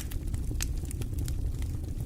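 Wood fire in a fireplace crackling: scattered sharp pops and snaps, several a second, over a low steady rumble of the burning fire.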